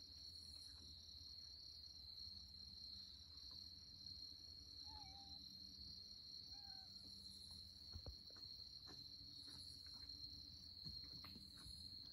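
Faint, steady high-pitched chorus of crickets, with a few soft clicks and rustles in the last few seconds.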